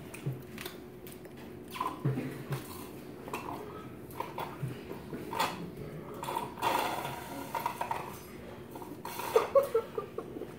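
Children eating cake face-first off plates with no hands: scattered small clicks, smacks and plate-on-table scrapes.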